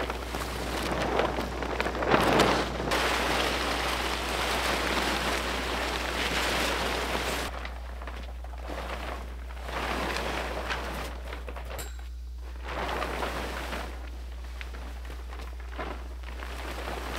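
Large waterproof roof tarp rustling and crackling as it is unrolled and dragged up over a metal frame. It is loudest in the first seven seconds, peaking about two seconds in, then comes in shorter bursts.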